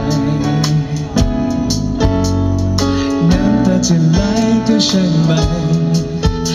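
Live band playing a pop song: a male singer's voice over electric guitar and a drum kit with regular drum hits.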